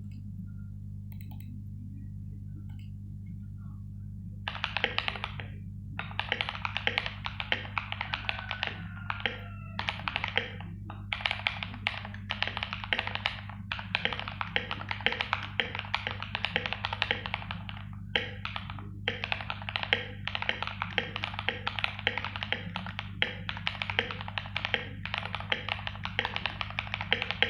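Akko 3084 v2 mechanical keyboard with lubed Akko CS Rose Red linear switches, PBT double-shot keycaps and foam-damped case, typed on in fast runs of keystrokes starting about four seconds in, with a few brief pauses. A steady low hum runs underneath.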